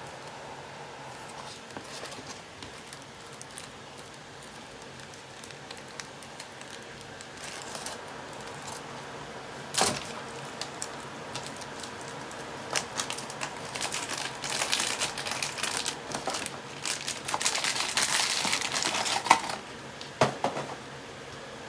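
A small clear plastic bag crinkling and crackling as it is handled and pulled open, with dense crinkles and sharp clicks. It starts faintly about a third of the way in, is loudest in the second half and stops shortly before the end.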